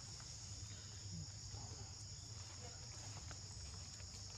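Steady high-pitched insect chorus, an even unbroken shrill, over a low steady hum.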